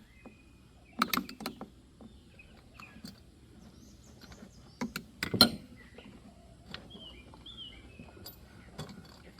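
A few sharp clicks and knocks as the saw's parts and tools are handled during the top-end teardown, in a cluster about a second in and again, loudest, about five seconds in. Birds chirp in the background.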